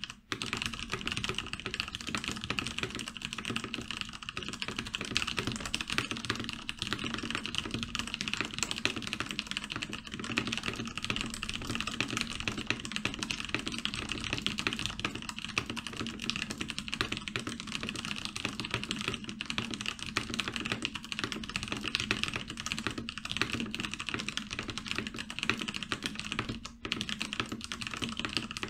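Steady fast typing on a Cooler Master MasterKeys Pro S RGB tenkeyless mechanical keyboard, its key switches and stabilizers lubed. A brief pause comes near the end.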